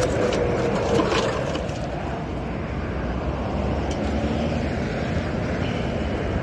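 A truck driving slowly along a dirt orchard track: a steady low engine and road rumble with wind noise, and a few light clicks near the start.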